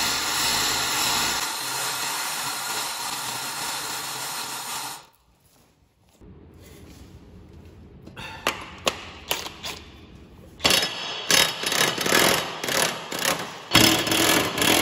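A loud, steady whirring noise for the first five seconds. After a short pause, a DeWalt 20V cordless impact wrench hammers in a run of short, irregular bursts, loosening the mower blade bolts on the deck spindles.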